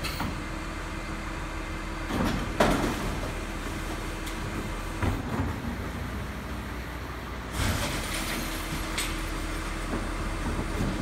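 Garbage truck's diesel engine running with a steady hum, broken by sharp metal clanks a couple of seconds in and again around five seconds, then a burst of hiss about seven and a half seconds in.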